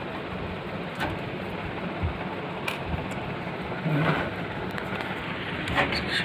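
Steady hiss of background noise with a few short clicks or knocks scattered through it.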